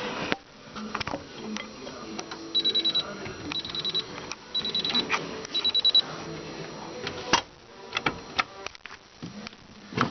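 Miele washing machine beeping: four short bursts of rapid high-pitched beeps about a second apart, among scattered sharp clicks.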